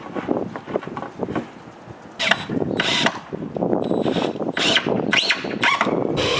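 Power drill driving screws into the coop's roof boards in a run of short trigger bursts, about six, starting about two seconds in.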